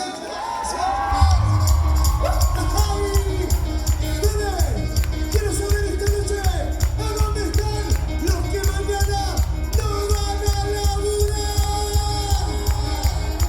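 A live band playing Latin dance music with a steady driving beat, quick hand percussion such as tambourine, and a melody that slides up and down in pitch, with some singing and crowd noise mixed in.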